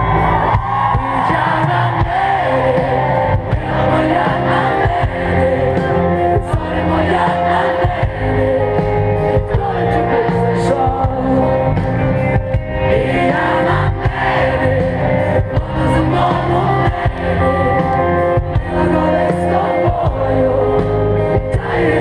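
Live rock band playing with singing, amplified over a stadium PA and heard from within the crowd.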